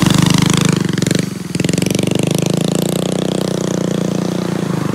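DTV Shredder tracked stand-up vehicle's small engine running under way, a rapid, even pulsing drone that dips briefly about a second in and then runs steadily.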